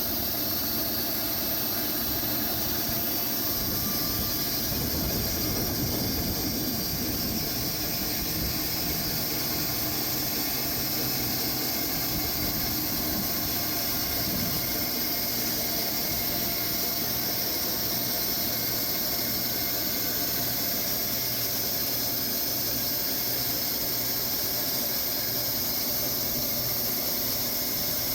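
Sawmill running steadily, cutting slabs from a large Bastogne walnut log.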